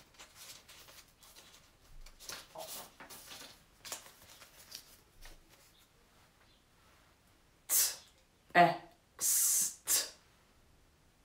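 Paper word cards rustling as they are handled, then, near the end, a man sounding out the word 'text' in four separate short sounds: a crisp 't', a voiced 'e', a longer hiss for the 'x' and a final 't'.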